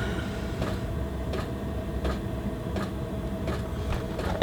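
A steady low background hum, with faint, irregular clicks and light knocks of small parts being handled.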